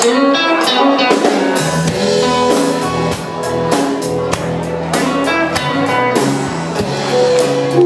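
Live band playing an instrumental intro on electric guitar, with bass and drum kit joining in about a second and a half in.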